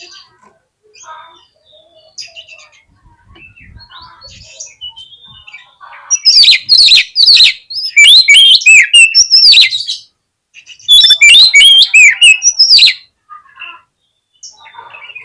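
Oriental magpie-robin (kacer) singing. Faint scattered chirps give way to two loud runs of rapid, varied whistled notes sliding up and down, the first about six seconds in and the second about eleven seconds in.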